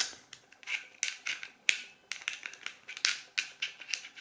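Steel socket being fitted onto and worked on a Gedore ratchet's square drive: a quick, uneven series of sharp metal clicks, about four or five a second.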